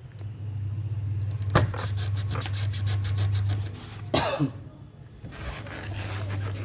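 Rubbing and scraping noises over a steady low hum, with a sharp click about a second and a half in and a brief falling sweep about four seconds in.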